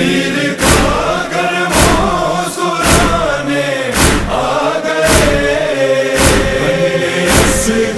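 Male voices chanting a noha refrain in long held tones over a heavy, steady beat about once a second, the chest-beating (matam) rhythm that keeps time in a noha.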